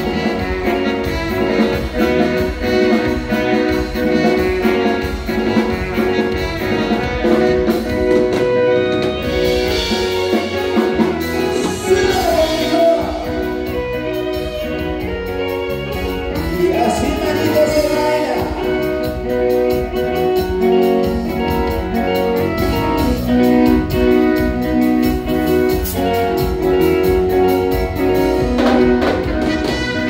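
Live band playing a mostly instrumental passage with drums and sustained melodic lines over a steady beat.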